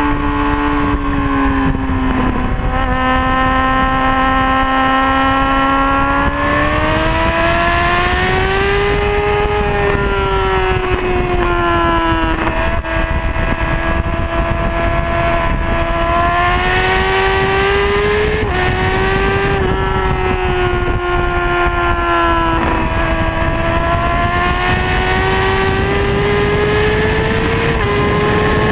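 Honda CBR600RR's inline-four engine running hard at high revs on track, its pitch climbing and falling through the corners, with several sudden steps at gear changes. A steady rushing noise lies under the engine.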